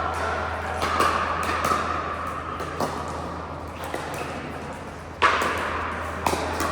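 Pickleball paddles striking the ball: several sharp pops about a second apart, the loudest about five seconds in, over a steady low hum.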